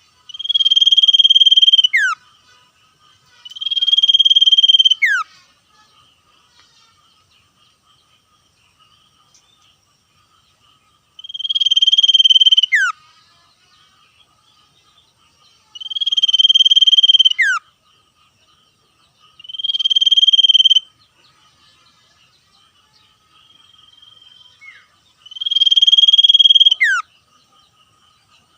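Common iora singing its buzzing trill song: six loud phrases, each about one and a half to two seconds held on one pitch and ending in a quick downward swoop, separated by pauses of a few seconds.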